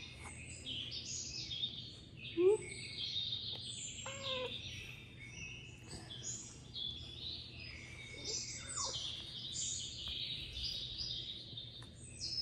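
Many small birds chirping and twittering without pause. A few short, lower-pitched calls rise or fall among them, the loudest about two and a half seconds in, with others near four seconds and near nine seconds.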